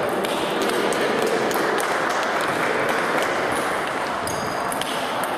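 Table tennis ball clicking off bats and bouncing on the table in a fast rally: a quick, irregular run of sharp clicks, several a second, over the steady background hum of a sports hall with other games going on.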